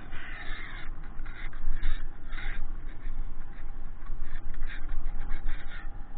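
Riding noise from a bicycle: a constant, unsteady low rumble of wind buffeting the microphone, with irregular bursts of rustling hiss.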